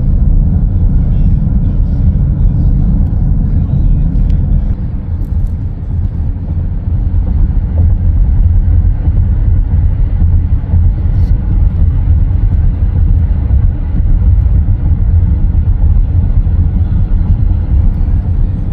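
Steady low road rumble inside a moving Chrysler Pacifica minivan, tyres and engine droning without a break.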